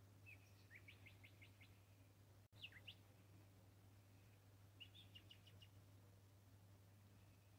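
Small birds chirping faintly in the background: a quick run of short high notes, a couple of sharp calls a little later, then another rapid run of notes about two-thirds of the way in, over a low steady hum.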